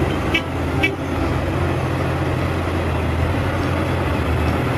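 Large Cat 6015B hydraulic mining excavator, its diesel engine running steadily under load as it digs. Two short, high toots sound about half a second in.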